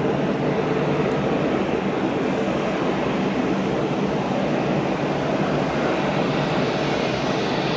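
Jet engines of an Airbus A320-family airliner running steadily at takeoff: a continuous, even rushing noise with a faint low hum in it, growing slightly louder near the end.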